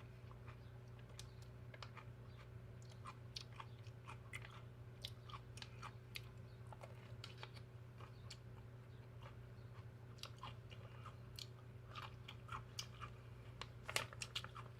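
Faint close-up chewing: small irregular crunches and wet mouth clicks, a louder cluster near the end, over a steady low hum.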